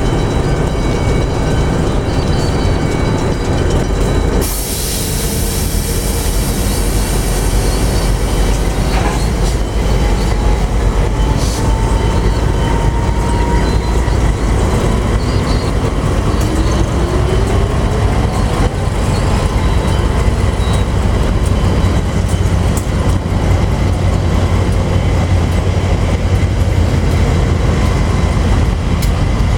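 Pacific National freight train hauled by diesel-electric locomotives departing: a loud, steady, heavy rumble of engines and rolling wagons. A hiss comes in suddenly about four seconds in, and a few faint rising wheel squeals follow.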